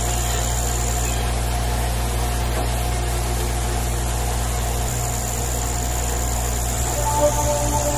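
Steady low mechanical drone with a thin high whine above it. About seven seconds in, sustained music notes come in over it.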